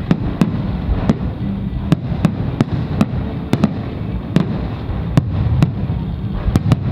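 Fireworks display: a continuous low rumble of shells bursting, with sharp cracking reports about twice a second.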